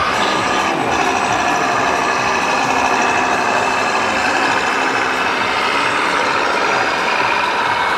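Steady truck engine sound from the small speakers of radio-controlled model fire trucks, thin and without deep bass, mixed with the constant din of an exhibition hall.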